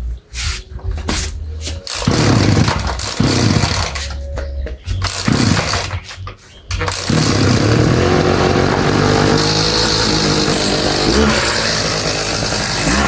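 Small petrol engine sputtering in short uneven bursts, then running steadily at high revs from about seven seconds in.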